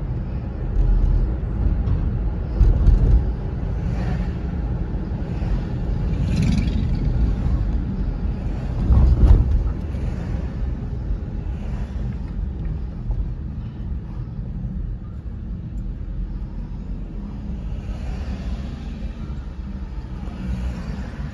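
Road noise inside a moving car: a steady low rumble of engine and tyres, with louder swells about three and nine seconds in.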